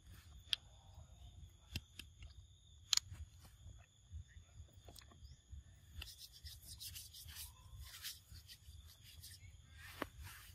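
Faint sounds of macaques eating mango and shifting about: scattered sharp clicks, and a denser patch of crackly rustling a little past the middle. A steady high-pitched hum runs underneath.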